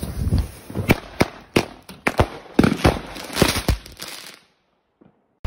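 Fireworks going off in a rapid, irregular string of a dozen or so sharp bangs and pops, over a crackling haze. The sound cuts off suddenly about four seconds in.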